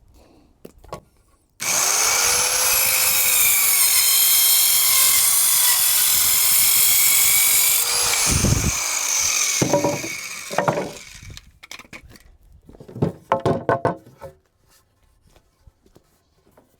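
Electric power saw cutting through a 2x4. The motor starts abruptly and runs loudly for about six seconds, its pitch dipping as it works through the wood, then winds down. A few knocks and clatter follow.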